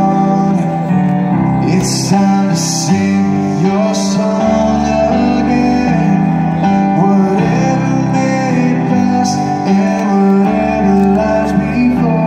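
Live band music: a keyboard plays sustained chords while a man sings, with a drum kit behind him. Cymbal crashes ring out a few times in the first four seconds.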